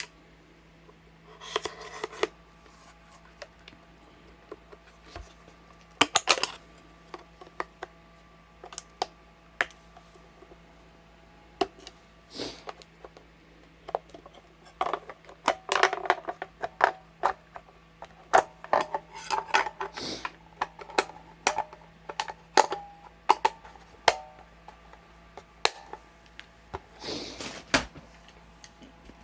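Scattered clicks, taps and light clatter of small hard objects being handled, coming much more often in the second half, over a steady low hum.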